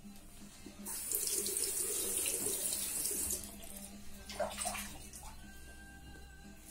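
Tap water running into a sink for about two and a half seconds, starting about a second in, followed by a shorter burst of splashing water.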